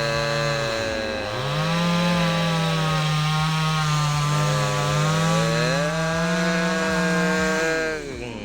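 Two-stroke chainsaw running at high revs, cutting into a tree. Its pitch dips and recovers about a second in, then falls away near the end as the throttle is released.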